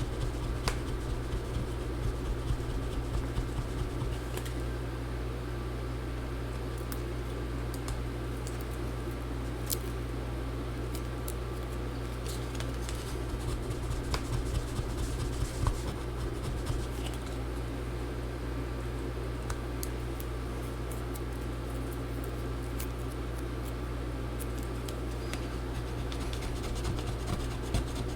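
Light scraping and small clicks, scattered and irregular, from hand tools working at a laptop's glued-in battery, over a steady low electrical hum.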